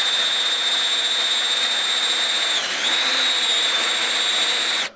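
Kobalt 24-volt cordless drill in low gear, boring a 3/8-inch bit through steel angle iron. The motor runs at a steady whine that dips in pitch briefly under load about two and a half seconds in, then stops just before the end.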